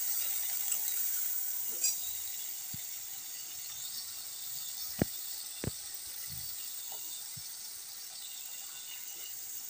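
Chopped onion and ginger sizzling in mustard oil in a steel kadhai: a steady frying hiss, with two sharp clicks about halfway through.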